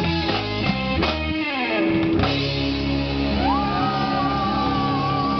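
Rock music led by electric guitar: choppy rhythmic chords, a downward slide about a second and a half in, then a held chord with a wavering high note over it.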